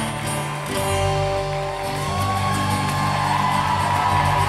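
Band music led by guitar, played on through held chords; a fuller chord with bass comes in a little under a second in.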